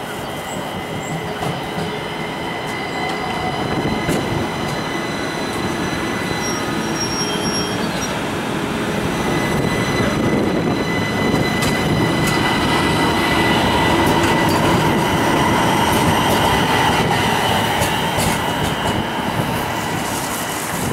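Light rail car rolling past close by on jointed street track: wheel rumble with clicks over the rail joints, and the wheels squealing in steady high whines as it takes the curve. It is loudest about two thirds of the way through.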